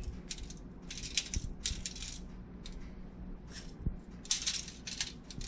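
Coarse Celtic sea salt sprinkled by hand onto whole brook trout on a foil-lined baking pan: the grains land as crisp little ticks in several short sprinkles.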